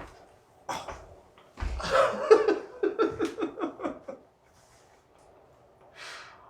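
A person laughing: a run of about a dozen short, even 'ha' pulses lasting about two and a half seconds, with a breathy exhale before it and another near the end.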